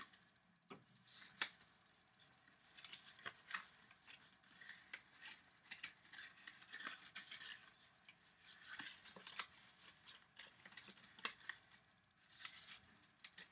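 Scored paper being folded up along its score lines by hand: faint, irregular crackles and rustles of creasing paper.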